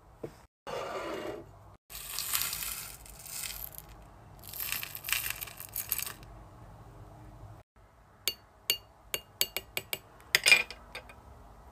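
Small plastic scoop digging through a tray of loose clay beads with a rattling rustle, twice. Then a scatter of about a dozen sharp clicks as the scooped beads drop one after another onto a glazed dish.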